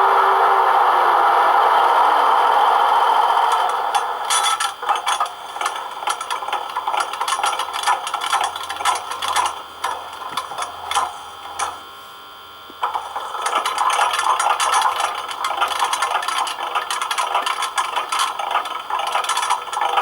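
Played-back sound effects from an H0 model Class 150 electric locomotive's ESU LokSound 4 sound decoder: a steady hiss with a low tone that drops in pitch and fades out over the first few seconds, then irregular clattering and rattling clicks.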